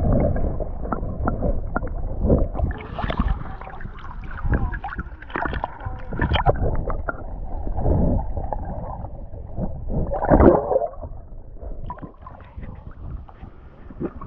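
Wind rumbling on the microphone, with water sloshing and splashing at the lakeshore and scattered knocks; a louder splash comes about ten seconds in.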